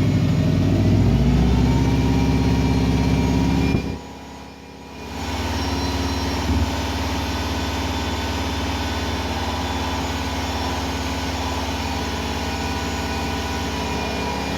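Turbocharged flat-four engine of a modified 2016 Subaru WRX STI with a catless downpipe running: revs climb in the first couple of seconds and hold, dip sharply about four seconds in, then settle into a steady idle. A short thump comes about six and a half seconds in.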